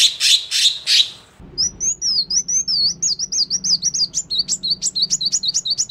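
Caged cucak kinoi songbird in full, vigorous song. A few harsh, raspy strokes come first. About a second and a half in, a fast run of high, sweeping whistled chirps begins and turns quicker and more clipped toward the end.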